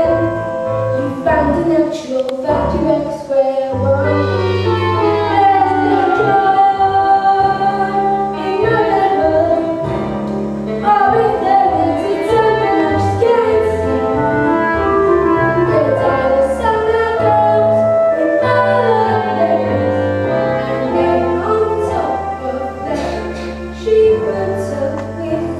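Singing with instrumental accompaniment: a song number from a stage musical, the vocal line gliding over long held bass notes.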